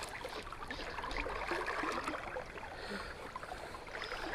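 River water flowing and trickling, a steady rushing with small scattered ticks and splashes.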